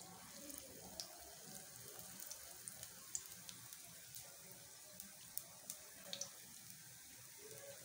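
Pakora batter patties shallow-frying in oil on a flat tawa over a low flame: a faint steady sizzle broken by scattered sharp pops and crackles.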